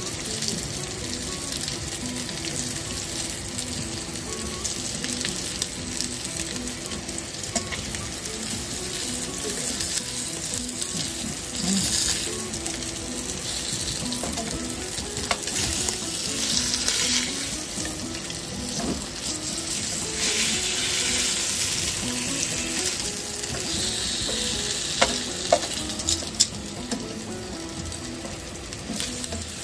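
Flour-dusted fish fillets sizzling as they fry in a pan, a steady hiss. Three sharp clicks sound close together about 25 seconds in.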